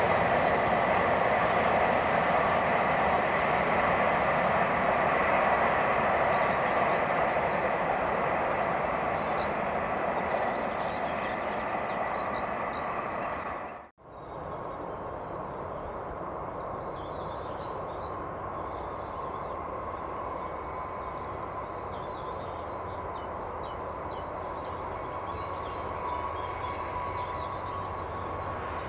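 Freight train wagons rolling past on the rails, with a steady rumble that fades as the container train moves away. After an abrupt cut, a diesel-hauled freight train approaches, its noise slowly growing.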